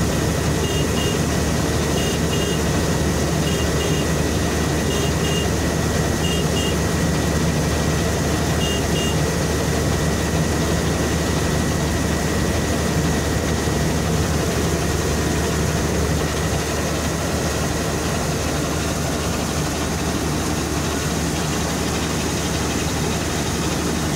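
Combine harvester running steadily at work while its unloading auger discharges threshed paddy grain into a trailer. A short double beep repeats about every second and a half through the first nine seconds.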